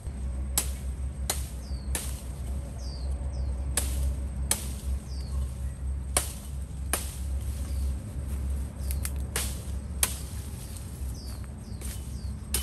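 Wood being chopped with a blade: about ten sharp strikes, often in pairs less than a second apart. A bird gives short falling whistles between the strokes, over a low steady rumble.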